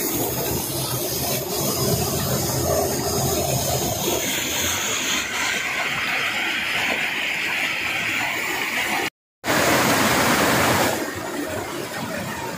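Fast-flowing stream water rushing and churning over rocks in a small cascade, close to the microphone: a steady, loud rush that cuts out for a moment about nine seconds in.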